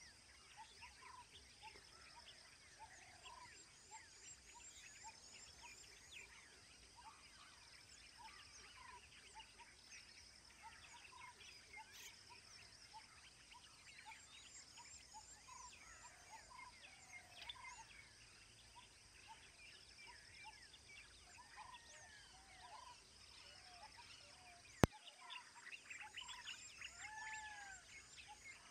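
Faint wetland and forest-edge ambience: many birds calling with short notes and chirps, over a steady high insect drone. A single sharp click sounds near the end.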